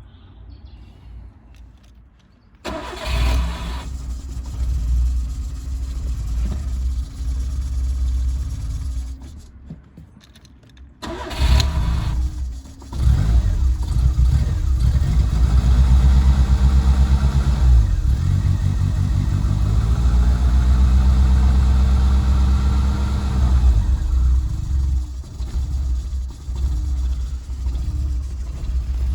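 Rover Metro's 1.1 K-Series four-cylinder petrol engine starting about three seconds in and running roughly, dying away around nine seconds, then starting again around eleven seconds and running unevenly with the revs rising and falling. The rough running is a misfire, which the owner feels is like the engine dropping a cylinder.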